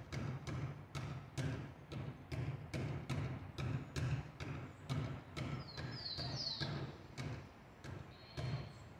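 A basketball being dribbled on a concrete floor: sharp bounces with a low thud in a steady rhythm, a little over two a second. A few high, falling chirps sound over them in the middle.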